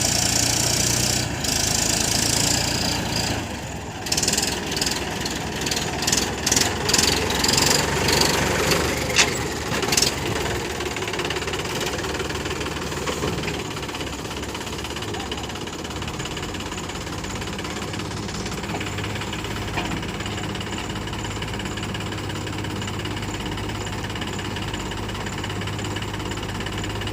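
Diesel engines of a backhoe loader and a tractor running under work. Early on there is a loud rush of engine noise, then several seconds of clattering knocks and thuds. The rest is a steady diesel idle hum.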